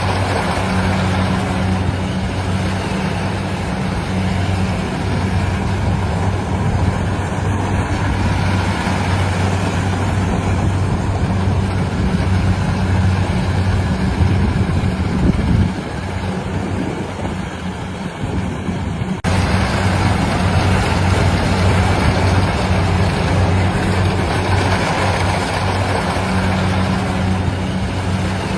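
A rice harvesting machine's engine running steadily with an even low hum over a wide mechanical noise. The sound changes abruptly about 19 seconds in to a similar engine sound.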